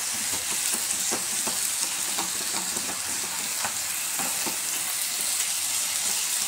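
Grated beetroot and carrot sizzling in a pan on the stove, nearly cooked through, while a flat spatula stirs them. Scattered short scrapes and taps of the spatula against the pan sound over the steady sizzle.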